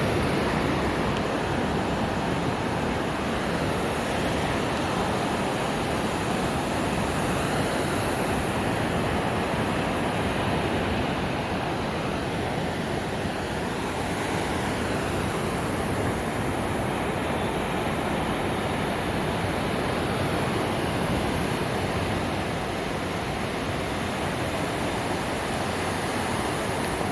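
Sea surf washing on a beach, a steady rushing noise with no distinct breaks or separate wave crashes.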